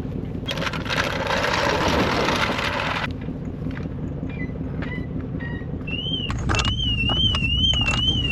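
A vehicle running with a steady low hum. A hiss lasts about two and a half seconds near the start, followed by scattered knocks. From about six seconds in, a car alarm sounds: an electronic tone warbling up and down about twice a second.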